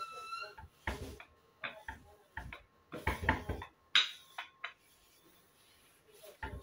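Wooden rolling pin working dough on a wooden board: irregular knocks and clatter in short clusters, with a sharp knock about four seconds in and a pause shortly after. A brief ringing tone sounds at the very start.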